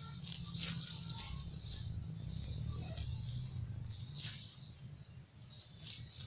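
A steady, high, finely pulsing insect trill, with a few short crackles and a low rumble underneath.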